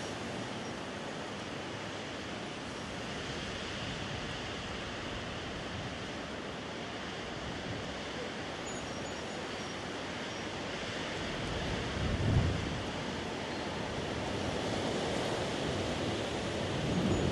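Wind blowing steadily in a rushing noise. About twelve seconds in, a gust buffets the microphone with a brief low rumble.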